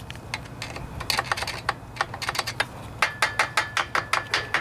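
Light, quick taps on a small metal part, scattered at first and then a steady run of about five taps a second from about three seconds in, with a faint ringing tone: tapping on the carburetor to knock a stuck brass main nozzle loose.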